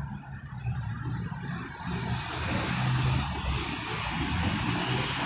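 Road traffic with a truck passing close in the nearest lane, its engine and tyre noise swelling to a peak about three seconds in.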